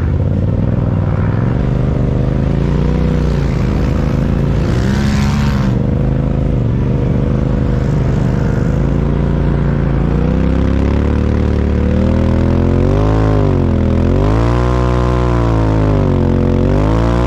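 UTV engine running hard on the dunes, its pitch climbing and dropping as it accelerates and eases off, several times in the last few seconds. A brief rush of noise comes about five seconds in.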